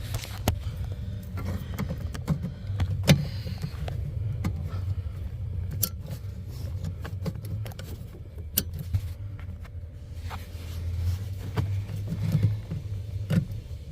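Wiring connectors being pushed onto a car's digital sound processor (DSP) module: scattered sharp plastic clicks and rattles, the loudest about three seconds in, over a steady low hum.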